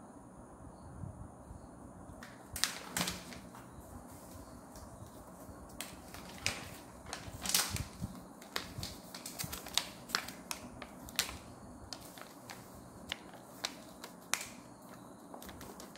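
Sheets of A4 copy paper being handled by hand, most likely leafed through and counted sheet by sheet. The sound is irregular crisp snaps and flicks, a few each second, starting about two and a half seconds in.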